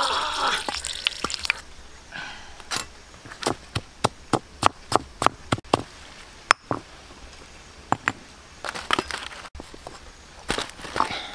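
Frying sizzle in a clay pan for the first second or so, then a stone pestle pounding chillies in a stone mortar: a run of sharp knocks, about four a second, with a few more scattered knocks near the end.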